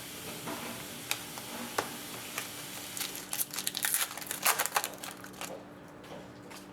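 Trading-card pack wrappers crinkling and cards being handled: a few sharp clicks in the first two seconds, then a flurry of crinkling in the middle that dies down near the end.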